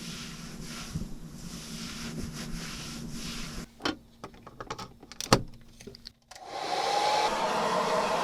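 A low steady hum, then a few knocks and clicks. After a brief silence, a steady rushing noise starts about six and a half seconds in.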